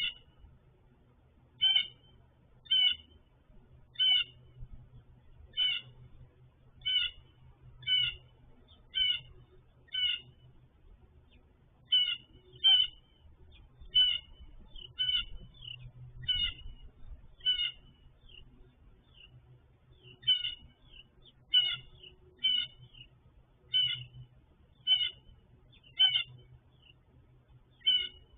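An animal repeating a short, high call about once a second, over and over with only brief gaps.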